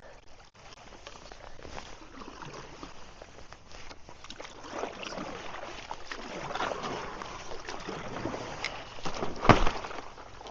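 Broken river ice moving, irregular crackling and grinding with water sloshing, growing busier over the middle of the stretch. A single sharp knock sounds near the end.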